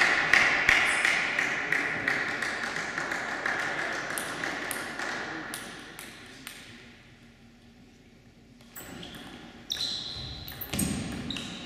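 A celluloid table tennis ball bouncing with a high pinging click, about three bounces a second, fading over the first few seconds. After a short quiet pause a rally starts near the end: sharp clicks of the ball on the bats and the table.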